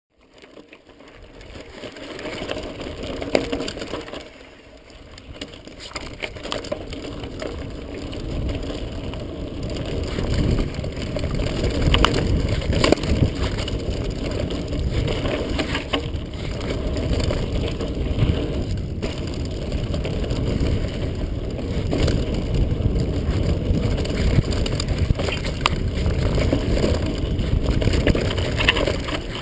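Mountain bike descending a dirt singletrack, heard from a GoPro on the rider: a steady low rumble of tyres and wind with frequent rattles and knocks as the bike runs over the rough trail. It fades in from silence over the first few seconds.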